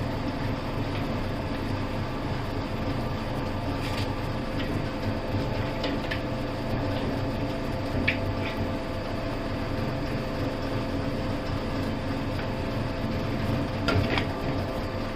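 Steady machine hum with a few constant tones, from the hose crimping machine's running hydraulic unit, broken by a handful of short, sharp metal clicks as die segments are set into the crimping head.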